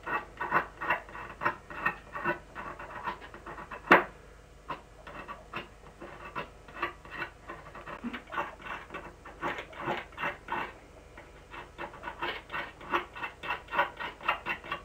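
A wooden pencil being shaved against a folding-knife blade stuck fast in a wooden table: quick rhythmic scraping strokes, several a second. There is one sharp click about four seconds in, followed by a short lull before the strokes resume.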